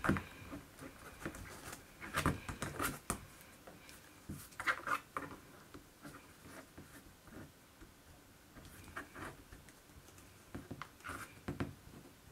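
Fused plastic perler-bead pieces being pressed and pushed together by hand: faint scattered clicks and scratchy rubbing of plastic in a few short clusters with quiet gaps between.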